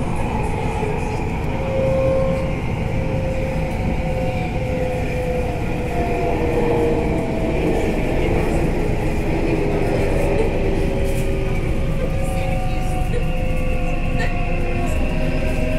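Delhi Metro Red Line train running, heard from inside the carriage: a steady low rumble with faint whining tones that slowly drift in pitch.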